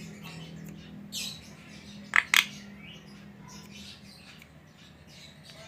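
Javan myna calling: a short rasping burst about a second in, then two sharp, loud calls in quick succession about two seconds in, among scattered faint chirps. A low steady hum underneath fades out near the middle.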